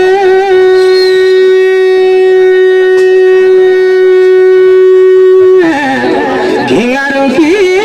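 Folk-music instrumental break led by a reedy wind-instrument melody: one long held note for about five and a half seconds, then a quick ornamented phrase with wavering pitch.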